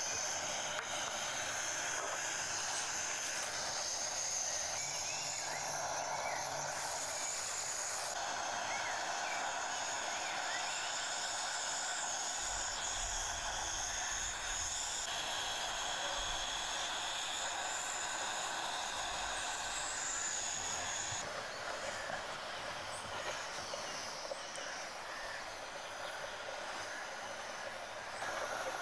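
Steady outdoor ambience: an insect chorus shrilling in several high, steady tones over an even hiss, with the mix changing abruptly a few times.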